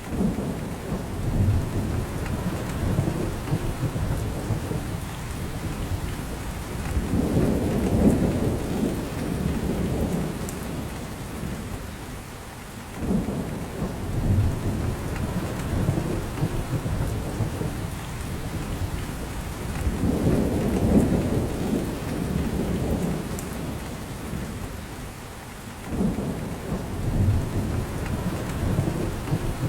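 Steady rain falling on a spruce forest. Low rumbling swells rise and fall about every six or seven seconds under the rain.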